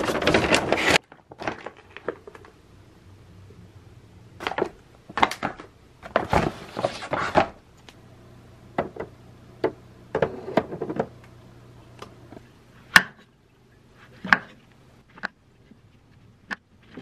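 Groceries being handled: rustling packaging and light knocks in irregular bursts. Then, in the last few seconds, a kitchen knife slicing shiitake mushrooms on a wooden cutting board: a handful of separate sharp cuts, the first the loudest.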